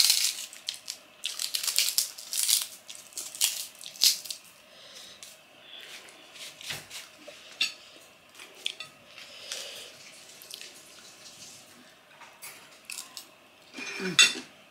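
Close-up eating sounds: wet chewing and mouth clicks, with a metal spoon scraping and clinking on a ceramic plate. Many short clicks come thickly at first and sparser from about five seconds in, with a louder cluster near the end.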